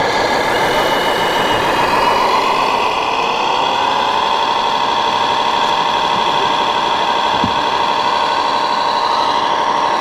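1/14-scale RC construction models running: a steady engine-like drone with a motor whine that rises in pitch about three seconds in and then holds steady.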